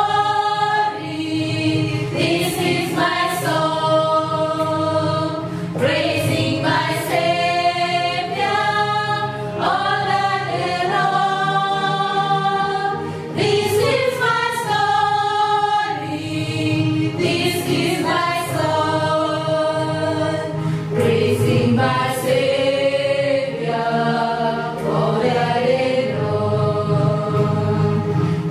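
A woman's voice singing a hymn in slow, long-held notes.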